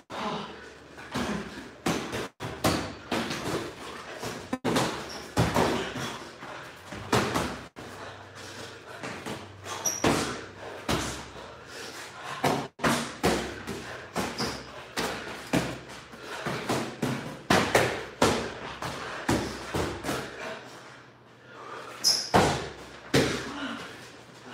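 Boxing sparring: gloved punches landing in irregular thuds and slaps, several close together in quick combinations, with brief cuts in the audio.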